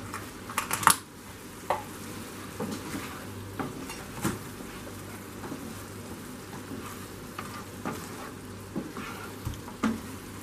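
Slotted spatula stirring and scraping through cream, spinach and cherry tomatoes cooking in a non-stick frying pan, with irregular scrapes and taps over a steady sizzle. A sharper knock comes just under a second in.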